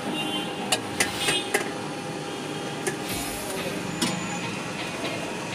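Food-stall ambience: a steady hum of street background with several sharp metallic clinks, metal utensils knocking against aluminium cooking pots.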